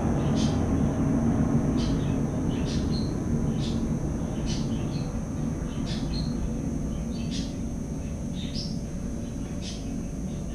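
A small bird calling repeatedly: short, sharp high chirps about once a second, some followed by a quieter second note. Underneath runs a louder low rumble, like distant traffic or an aircraft, slowly fading.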